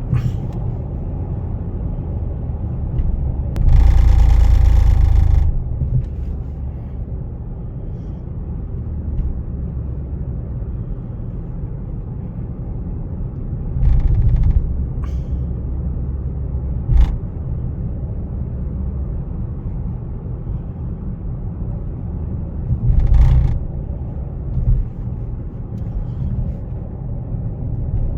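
Steady low rumble from a Cadillac CTS Sport Wagon, broken by several louder noises: a loud rushing noise lasting about two seconds a few seconds in, thuds about halfway and again later, and a single sharp knock. The intermittent noises are the unexplained abnormal noise the owner is trying to identify.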